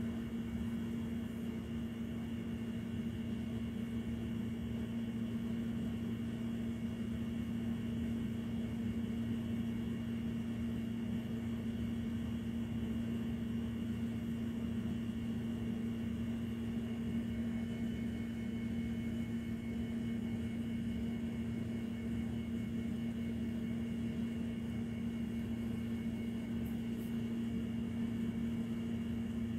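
Steady low machine hum on one held pitch, with a rumble beneath it.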